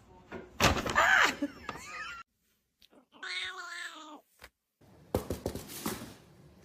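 Cats meowing: a loud call with a sliding pitch about half a second in, then a steady drawn-out meow around three seconds in. It ends with a quick run of sharp knocks or clattering.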